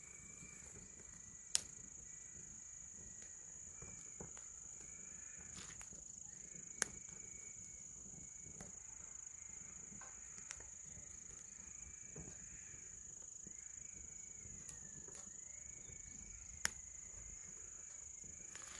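Mini firewood burning in a fire pit, giving three sharp crackling pops several seconds apart and smaller ticks between, with a faint wavering whistle. Crickets keep up a steady high trill underneath.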